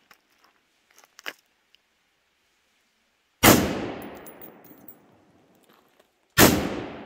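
Two rifle shots from a Kel-Tec SU-16, about three seconds apart, each followed by an echo that fades over about a second and a half.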